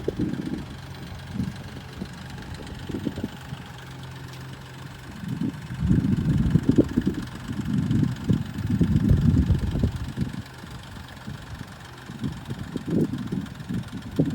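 BMW M235i's turbocharged straight-six idling shortly after start-up, with a continual ticking that the owner finds far louder than on other BMWs he has owned, though some tell him the tick is normal. Louder, irregular low rumbling surges come in about five seconds in, last about five seconds, and return briefly near the end.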